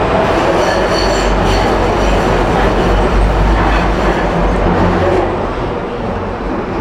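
Budapest Line 1 metro train running through the tunnel, the wheels squealing briefly about a second in. The running noise drops after about five seconds as the train eases off.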